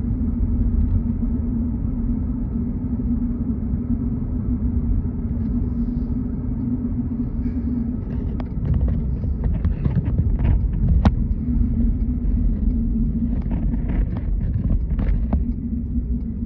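Car driving, heard from inside the cabin: a steady low road and engine rumble with a constant hum. A scattering of short taps or clicks comes in about halfway through.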